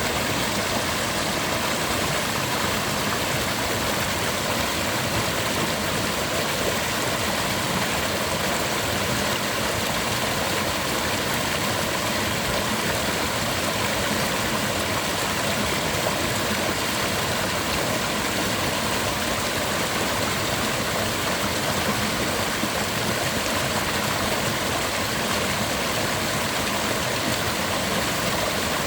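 Mountain river rushing over rocks: a steady, unbroken roar of flowing water.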